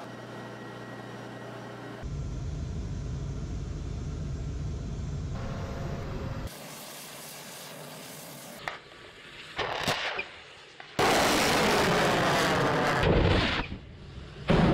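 Surface-to-air missiles launching: a sharp crack and short blasts, then two long, loud rocket-motor roars, the second starting near the end. Before them, a steady hum and a low rumble of military vehicles.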